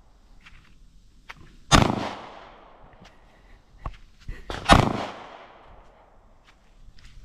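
Two handgun shots about three seconds apart, each a loud crack followed by a ringing tail lasting about a second, with a fainter sharp crack shortly before the second shot.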